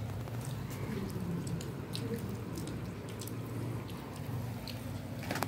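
A tiny pan of oil frying over a small twig fire, crackling with faint scattered pops and ticks over a low steady hum.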